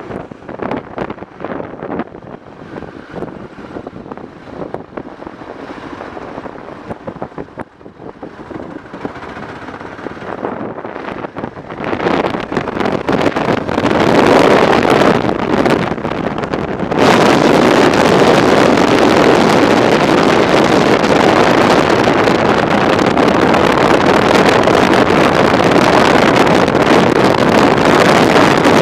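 Wind rushing over the microphone of a BMW F650 motorcycle under way, choppy and moderate at first. It grows louder after about twelve seconds and becomes a steady loud rush a little past halfway.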